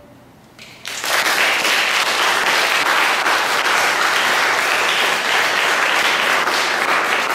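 Audience applause breaking out sharply about a second in and going on as a steady, loud clapping.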